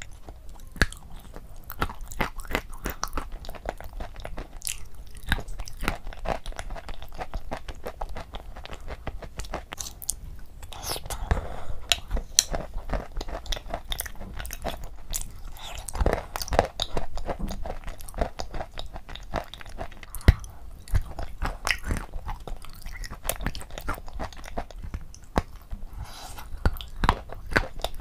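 Close-miked mouth sounds of eating a creamy dessert off a spoon: wet chewing and smacking with many small crunches and clicks, coming irregularly throughout.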